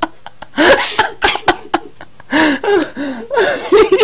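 People laughing under their breath: breathy snickers and giggles in short bursts, with a quicker run of laughs near the end.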